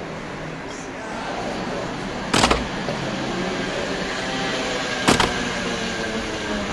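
Sharp knocks repeating at an even pace, about two and a half seconds apart, over a steady background noise.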